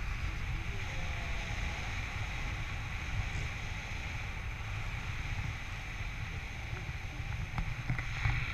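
Wind noise from the airflow of a paraglider in flight rushing over an action camera's microphone: a steady low rumble with a hiss above it.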